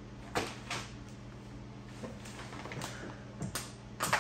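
Scattered light knocks and clicks from a person shifting on the floor under a car's rear bumper and handling a tool, with a sharper knock near the end, over a low steady hum.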